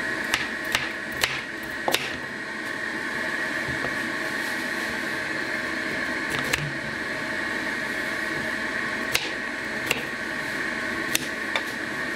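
Kitchen knife cutting peeled arracacha into chunks on a cutting board: sharp, single taps of the blade striking the board, several in the first two seconds, then scattered ones, over a steady background hum.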